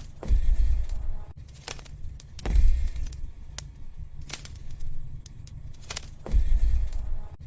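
Wood fire crackling in a fireplace, with irregular sharp pops and snaps over a soft hiss. Three deeper low rumbles of flame swell and fade, at the start, about two and a half seconds in and near the end.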